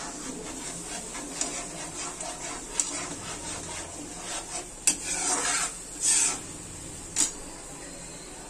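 Metal spatula stirring and scraping a thick masala paste in a metal kadai, with clinks against the pan. The louder scrapes come about five and six seconds in, and a sharp tap comes about seven seconds in, after which the stirring stops.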